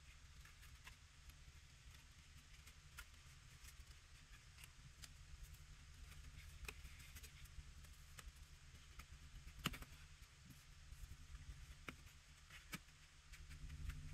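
Faint, scattered light clicks and taps of thin wooden divider strips being slotted together and set into a wooden box, with one sharper click about ten seconds in, over a faint low hum.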